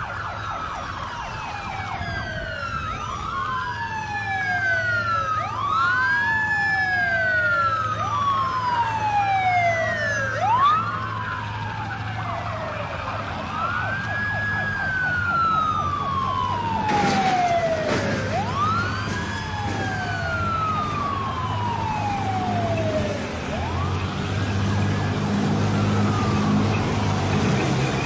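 Several police car sirens wailing together, each sweeping up and down over a few seconds, over a steady low engine rumble. A brief knock sounds about halfway through, and the low engine rumble grows louder near the end.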